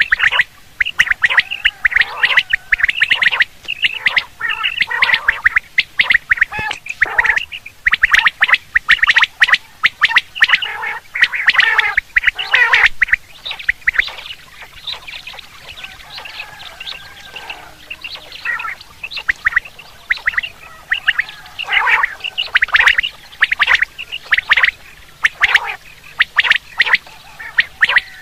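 Common quail calling, many quick short calls crowding and overlapping, thinning out for a few seconds midway before picking up again.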